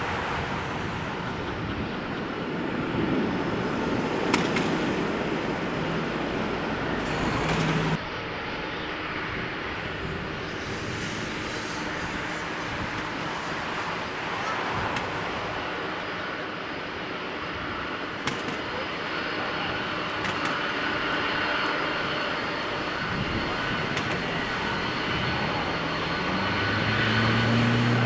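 Boeing 747-400's four jet engines running with a steady rushing noise and a high turbine whine, growing louder near the end.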